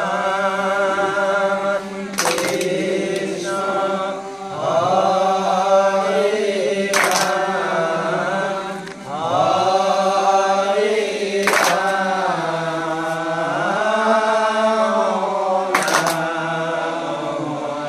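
Assamese naam-prasanga devotional chant: slow sung phrases over a steady held low note, with a sharp ringing strike about every four and a half seconds marking the beat.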